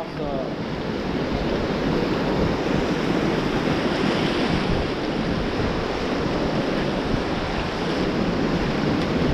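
White-water river rapids rushing and churning around an inflatable raft, a steady wash of noise, with wind buffeting the microphone.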